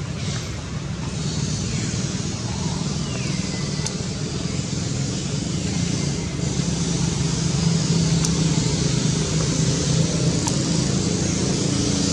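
Steady low rumble of road traffic with a high hiss over it, growing louder in the second half, with a few faint clicks.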